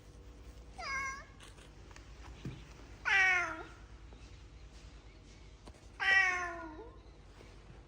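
Domestic cat meowing three times: a short faint meow, then two longer, louder ones, each dropping in pitch at the end.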